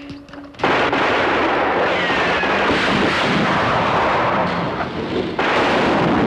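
A sudden loud blast about half a second in, running on as a dense, steady rumble of explosion noise with an abrupt change near the end: a powder charge packed with salt going off.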